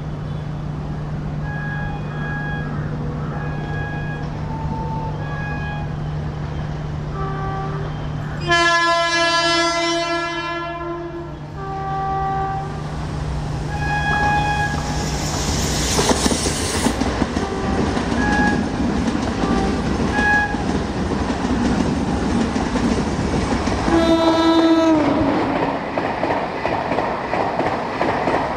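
WAP-7 electric locomotive approaching and sounding one long horn blast about a third of the way in. Then it and its LHB coaches pass close by with loud rushing wheel noise and clickety-clack over the rail joints. The horn sounds again briefly as the locomotive goes by, its pitch dropping at the end.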